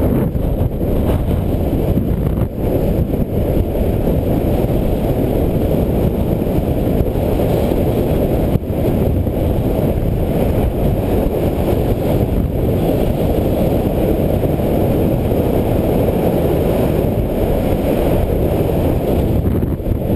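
Loud, steady wind rumble buffeting the camera's microphone, from the airflow of a speedglider launching and flying in a strong headwind.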